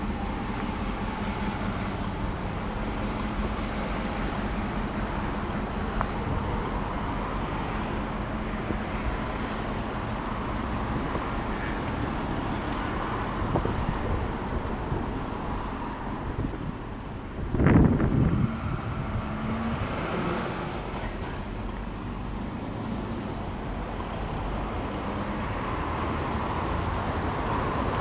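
Steady street traffic noise from passing cars. A brief, much louder rush of noise comes about two-thirds of the way through.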